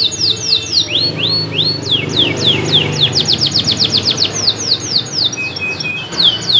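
Domestic canary singing without a break: loud, rapid trills of short falling notes, each series at its own speed, with a few slower rising notes about a second in and a short run of steady lower whistles near the end.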